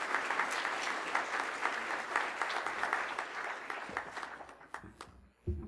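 Audience applauding, the clapping dying away about four seconds in, followed by a short low thump near the end.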